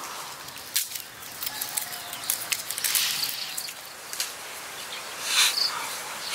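Leaves rustling and crackling as a bunch of fresh herbs is picked over by hand, with scattered sharp clicks and snaps.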